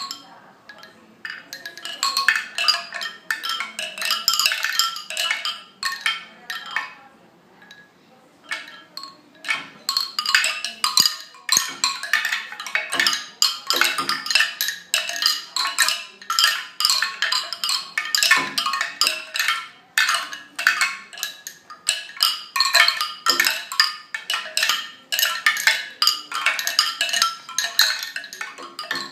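Bamboo wind chime clattering: its tubes knock together in quick runs of hollow wooden clacks that come in spells, with short lulls between them.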